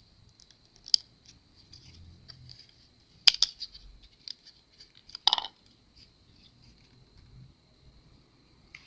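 Small clicks and ticks of a plastic pry tool working a ribbon-cable connector loose on a laptop's power-button board, with a sharp click about a third of the way through and a louder snap a couple of seconds later as the cable comes free.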